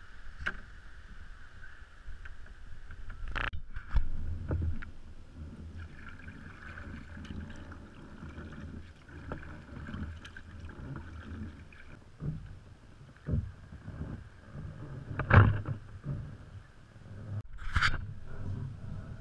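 Water sloshing against a sea kayak's hull with a steady low rumble, broken by several sharp knocks, the loudest about three-quarters of the way through.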